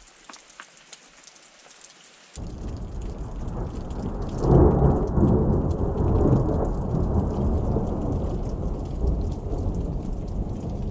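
Steady rain with a thunderstorm overhead. The first couple of seconds hold only soft rain pattering; then a low thunder rumble comes in suddenly, swells to its loudest a couple of seconds later and rolls on under the rain.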